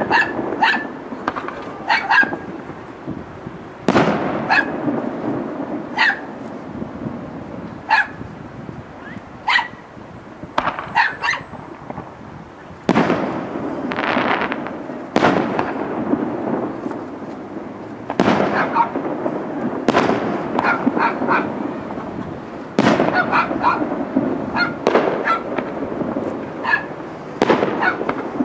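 Aerial fireworks bursting one after another: sharp booms every second or two, some followed by a few seconds of crackling rumble.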